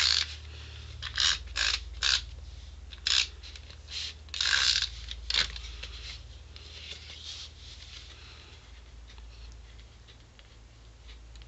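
A SNAIL adhesive tape runner being drawn across cardstock in a run of about eight short strokes over the first five or six seconds, one of them longer. After that it goes quieter.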